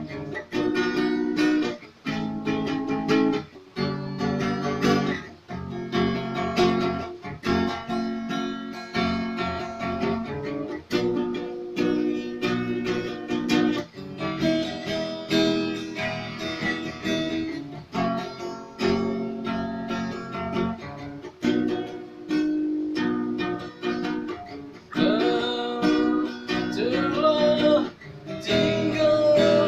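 Acoustic guitar strummed in a steady rhythm through changing chords, an instrumental passage of a song; from about 25 seconds in, a sliding melody line rises and falls over the chords.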